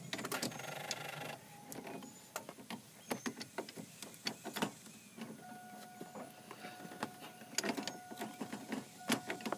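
Irregular metallic clicks and taps of a hand tool tightening the negative battery cable terminal. From about five seconds in, a steady electronic tone sounds on and off over the clicks.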